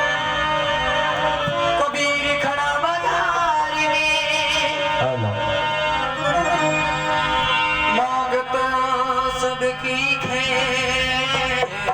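Indian devotional folk music: a melody played in long held notes with wavering ornaments, over a steady low drone.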